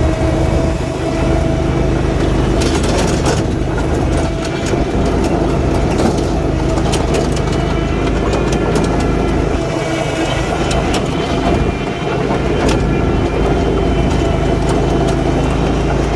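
Toro Z Master 6000 zero-turn mower's engine running steadily at high throttle while the mower drives at its top ground speed, with scattered short clicks over it.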